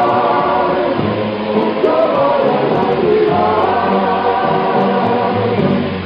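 Music: a vocal group singing held choral notes over instrumental backing.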